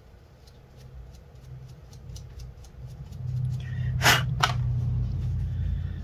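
Laptop cooling fan being wiped clean of dust by hand. Quiet rubbing and handling noises grow louder about halfway through, with two short scrapes about four seconds in.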